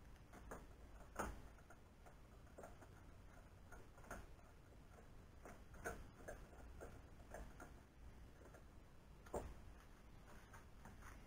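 Faint, irregular metal clicks and taps of a hand tool working a bolt on the aluminium-extrusion frame of a CNC router, with three sharper clicks spread through.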